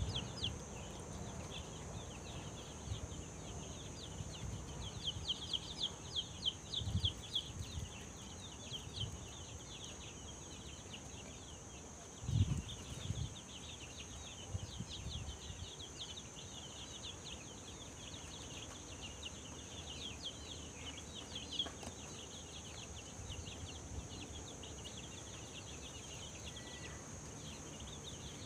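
Young chicks peeping continuously in rapid, high, short chirps over a steady high-pitched drone. A dull thump about twelve seconds in, with a couple of softer ones around seven seconds.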